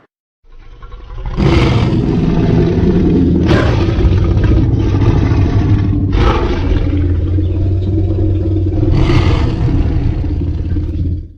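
Creature sound effect for a T-Rex–Godzilla hybrid kaiju: a long, deep rumbling growl with four louder surges, cutting off abruptly near the end.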